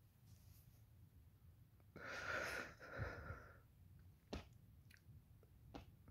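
A man's heavy, shaky breath, one loud drawn breath about two seconds in lasting over a second, as he is overcome with emotion, then a short click.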